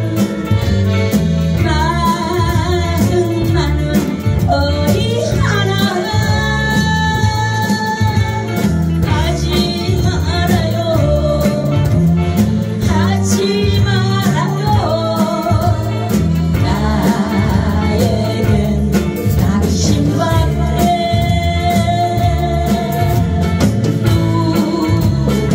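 A woman singing a Korean song live into a microphone, backed by a band of drums, electric guitar, bass guitar and keyboard playing a steady beat; her held notes waver with vibrato.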